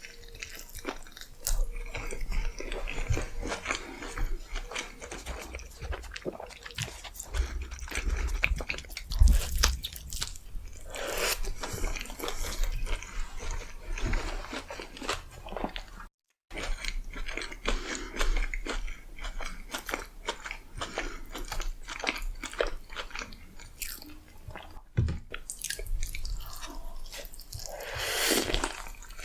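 Close-up eating sounds: biting into and chewing crispy fried chicken in sweet chili glaze, with dense irregular crunching throughout. There is a split-second dropout to silence a little past halfway.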